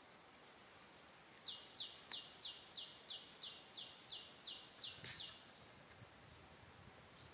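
A bird calling a run of about a dozen short, high notes, roughly three a second, over a faint outdoor background.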